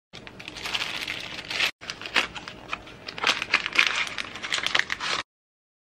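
Plastic inner bag of boxed cake mix crinkling and rustling as the dry mix is shaken out into a stainless steel bowl, with many small sharp crackles. It stops abruptly a little after five seconds.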